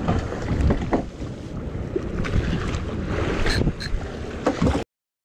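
Wind buffeting the microphone over the wash of water around a small boat, with scattered knocks. The sound cuts off suddenly near the end.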